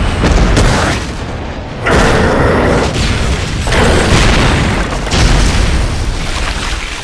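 Animated giant-monster fight sound effects: a series of heavy booms and crashes, about four big hits, as a Titan is slammed to the ground in a cloud of dust.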